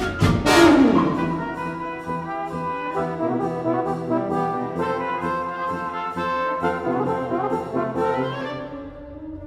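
Orchestral film score led by brass. A loud accented swell comes at the start, then sustained chords follow and fade down near the end.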